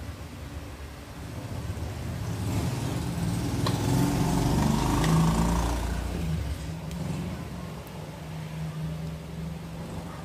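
A motor vehicle passing by: its engine grows louder to a peak about five seconds in, then fades away.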